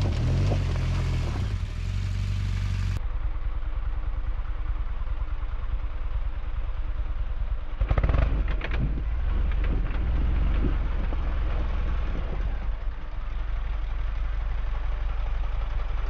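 BMW GS boxer-twin engine running and revving as the rear tyre spins in loose dirt, its power cut in and out by the traction control, which interrupts the wheel spin. The engine surges louder about halfway through.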